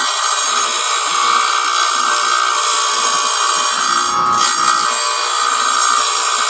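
A powered diamond tool, which the maker calls a diamond drill, cutting through stained glass: a steady high whine with grinding noise that changes briefly about four seconds in.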